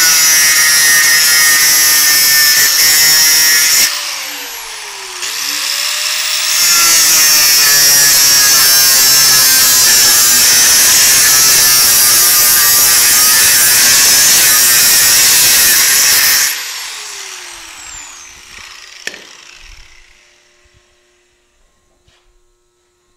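Angle grinder cutting stainless steel expanded-metal grate. A loud cut of about four seconds is followed by a brief let-off, where the wheel slows and spins back up, and then a longer cut of about ten seconds. The grinder is then switched off and its whine falls in pitch as the wheel winds down.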